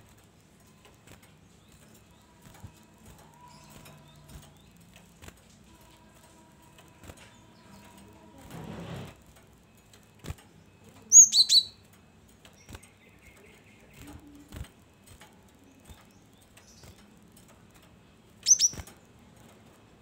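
Caged cinereous tit calling in short bursts of high, down-slurred chirps: a quick run of several notes about eleven seconds in and a brief pair near the end. Between them come a short rustle and a few light knocks.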